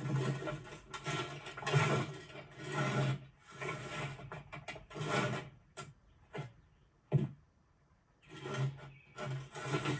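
Repeated rough scraping and rubbing, like a wooden object being dragged, coming in strokes about once a second. It stops for a moment around six seconds in, a single sharp knock sounds near seven seconds, and the scraping starts again near the end.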